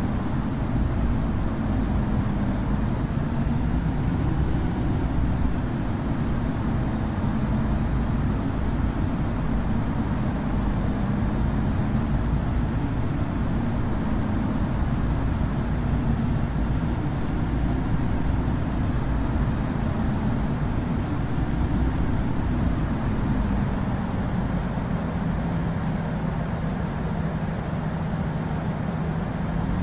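Boeing 787-9 cabin noise: the jet's engines and airflow make a steady low rumble and drone, with a faint high whine that slowly wavers in pitch.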